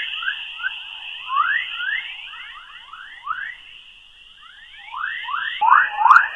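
Earth's magnetospheric plasma waves converted to audio, the 'chorus': many short rising chirps, much like birdsong, over a steady hiss. The chirps grow denser and louder near the end.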